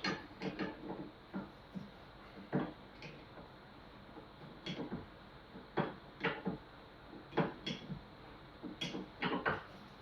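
Irregular metal knocks and clinks, about one a second and some in quick pairs, as tools work the spring preload locking rings loose on a Yamaha TZR 250 rear shock held in a vise.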